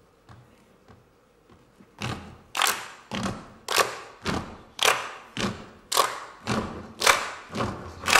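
A large group clapping their hands in unison together with heavy thuds, in a steady rhythm of about two beats a second, beginning about two seconds in after a few faint taps.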